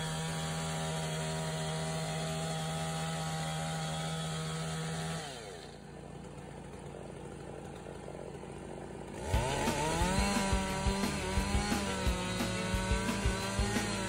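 Chainsaw running at high revs while sawing a log into planks. About five seconds in it drops to idle, then near nine seconds it revs back up and bites into the wood again, its note wavering and pulsing unevenly under the load.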